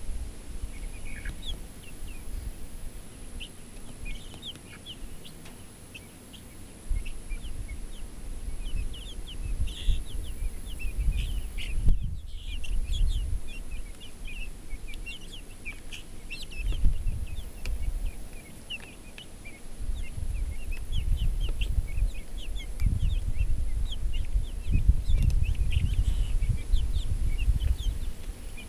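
Young chickens peeping over and over in short, high chirps, over a low rumble that swells and fades.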